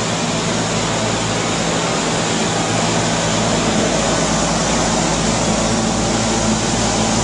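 Wet-spray cellulose insulation blasting from a hose nozzle into wall stud cavities: a loud, steady rushing hiss over a constant low machine hum.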